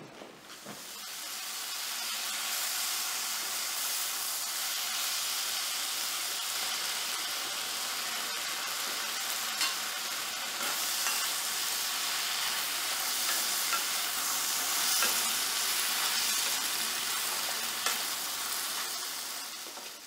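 Udon noodles and shredded cabbage sizzling as they are stir-fried in an enameled cast-iron pan: a steady frying hiss that fades in over the first second, with a few sharp clicks.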